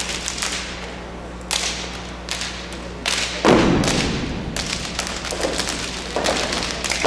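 Step team stepping in unison: sharp claps and stomps struck together in an uneven pattern, with a heavy thump about three and a half seconds in and another near the end, each trailing off in the hall's echo.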